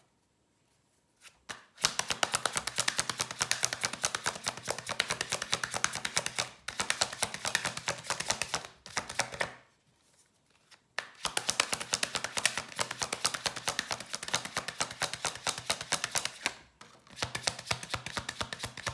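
Tarot deck being shuffled by hand: a rapid patter of card clicks in several bouts of a few seconds each. There are short breaks in it, the longest about ten seconds in.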